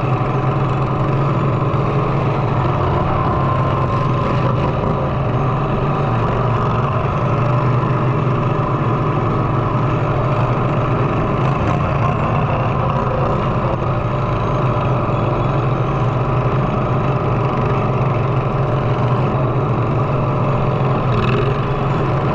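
Riding lawnmower engines running steadily, a constant low hum with no clear revving.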